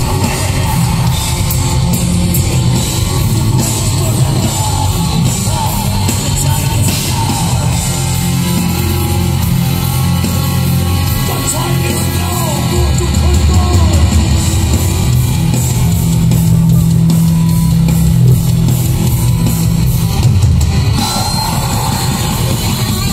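Black metal band playing live at full volume: distorted electric guitars, bass and drum kit, heard from among the audience.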